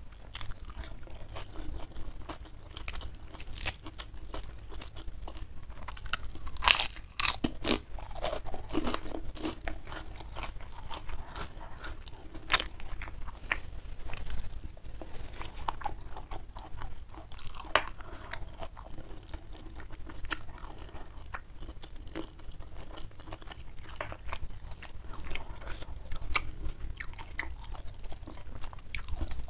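A person chewing and biting food close to the microphone, eating by hand from a meal of rice, salted fish, fried jengkol and chili sambal. Many small crunches and wet mouth clicks, thickest about a quarter of the way in.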